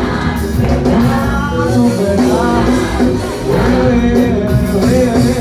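Gospel music: a choir singing over a band backing.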